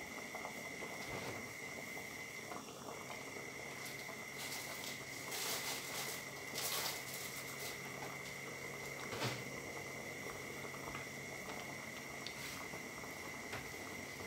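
Pot of sour curry simmering over a gas burner: a steady low bubbling and crackle, with a couple of brief louder spells midway and a single sharp click about nine seconds in.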